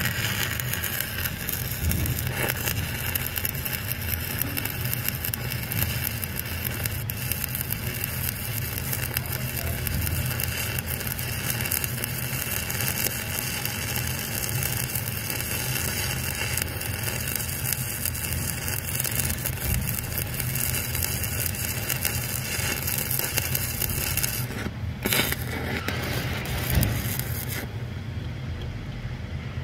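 Stick-welding arc crackling steadily as a 1/8-inch Lincoln Excalibur 7018 electrode burns in an overhead fillet weld. The arc breaks off briefly about 25 seconds in, restarts, and goes out shortly before the end.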